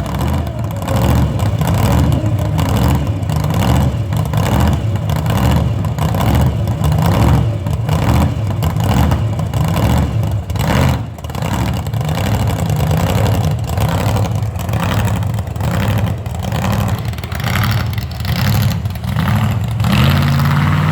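Backhoe's diesel engine running hard, its revs surging and dropping every second or so as the machine works quickly, then revving up near the end.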